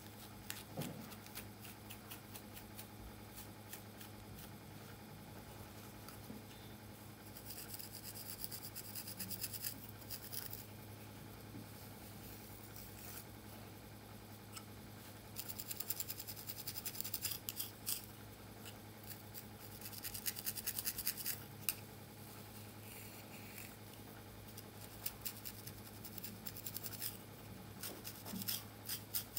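Comb teeth scratching and raking through coarse, tightly coiled hair and across the scalp as cornrows are picked apart, in clusters of quick crackly scratches. A steady low hum runs underneath.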